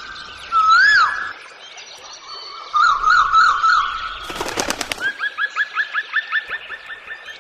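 Birds singing: a loud rising-and-falling whistled phrase about half a second in, a warbled phrase around three seconds in, a brief rattle after that, then a fast run of short upslurred notes, about five a second.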